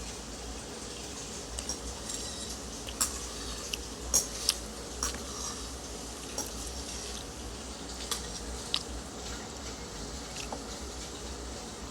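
Cutlery clinking against a plate during a meal: about a dozen irregular sharp clicks, thickest and loudest around the middle, over a steady low hum.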